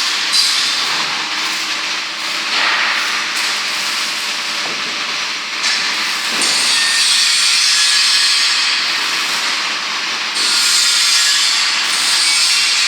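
Woodworking machine cutting wood with a loud, steady, hissing whir. It grows louder about six seconds in and again about ten seconds in.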